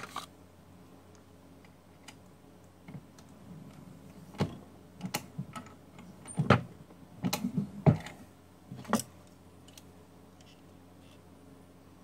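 A single-stage reloading press being worked to seat a bullet in a 224 Valkyrie cartridge case: a cluster of sharp clicks and knocks between about four and nine seconds in, the loudest near eight seconds, along with small clicks of brass being handled.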